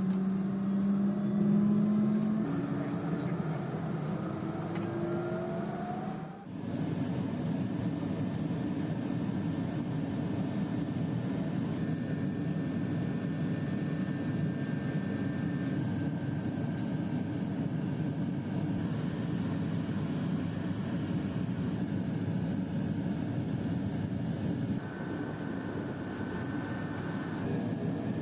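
Pilatus PC-12's single turboprop engine running: several tones rising in pitch over the first six seconds, then, after a short break, a steady drone.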